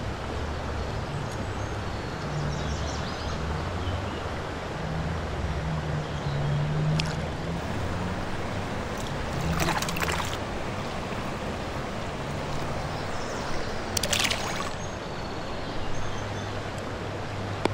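Steady rush of a flowing creek around the angler's legs, with a few brief splashes and knocks about halfway through and again a little later as a trout is handled in a landing net and let go into the water.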